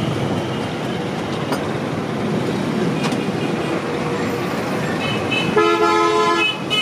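Street traffic noise, with a vehicle horn honking once for about a second near the end.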